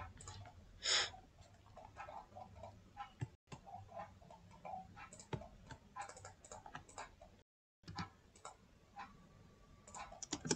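Computer keyboard and mouse clicking: light, irregular clicks in small clusters, with one short hiss about a second in.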